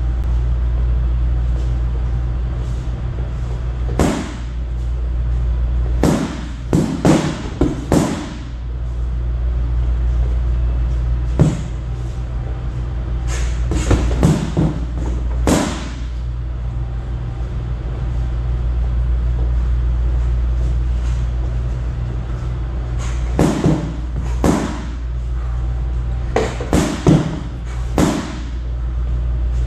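A training stick smacking a Wavemaster Super XX freestanding punching bag in quick flurries of sharp strikes, with pauses of a few seconds between flurries. A steady low hum runs underneath.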